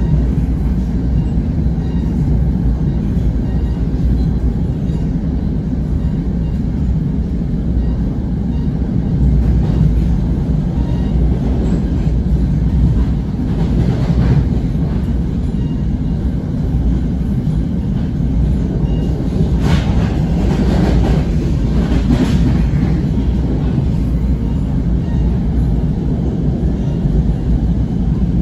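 Passenger railcar running along the track, heard from inside the coach: a steady low rumble of wheels on rail, with a few sharper clacks about two-thirds of the way through.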